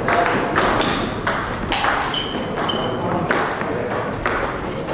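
Table tennis balls clicking in quick, irregular succession as they are struck by bats and bounce on the table.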